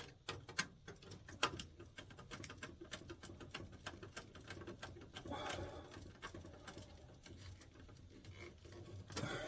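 Irregular light clicks and taps from hand work on a furnace control board's wiring terminals, as thermostat wires are fitted and screwed down, with a brief rustle of handling about halfway through.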